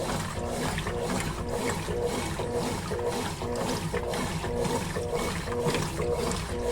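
Consul Facilite 11 kg (CWG11) top-loading washing machine in its wash cycle, its motor whining as it drives the load back and forth about twice a second, with water and clothes sloshing in the drum.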